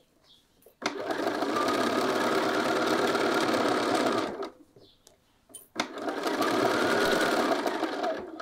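Bernina sewing machine stitching in two runs of about three seconds each, with a short pause between them. The first run starts about a second in, and a single click comes just before the second run starts.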